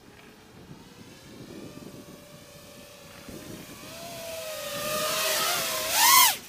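Eachine Wizard X220S racing quadcopter's brushless motors and propellers whining in flight, faint at first and growing louder as it closes in. About six seconds in it passes close by: the whine peaks with a quick rise and fall in pitch, then drops away sharply.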